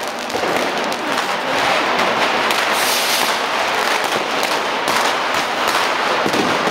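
Firecrackers and fireworks going off in quick, irregular succession: a steady crackle of sharp bangs, with a brief hissing burst about three seconds in.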